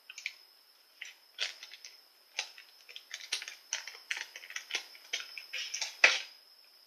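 Small plastic candy-powder packet crinkling and crackling in quick, irregular bursts as it is handled, with the sharpest crackle near the end.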